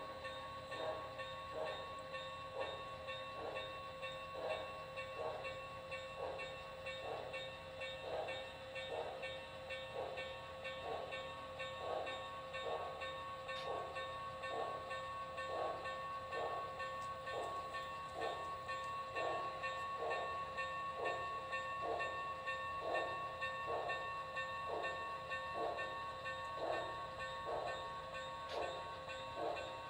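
Sound system of a model Santa Fe 4-8-4 Northern steam locomotive playing slow, evenly spaced steam exhaust chuffs, a little under two a second, over a steady tone as the engine moves slowly.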